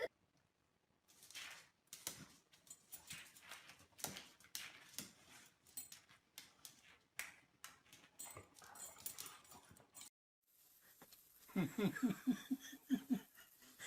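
A dog, making scattered short noises, then after a brief gap a run of quick, low, pulsing vocal sounds near the end.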